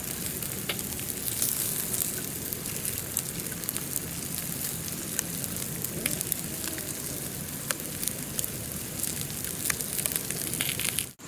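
Open wood fire crackling under a carp roasting on bamboo skewers: a steady hiss with many small, irregular pops.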